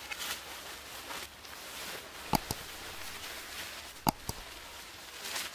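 Fabric motorcycle cover rustling as it is handled over the bike, with two sharp knocks, each followed by a lighter one, a little over two seconds and about four seconds in.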